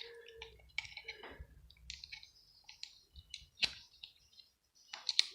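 Scattered light clicks and small knocks as hand tools work the plastic and metal parts of a multi-plug adaptor being taken apart. A sharper click comes about three and a half seconds in, and a few more come near the end.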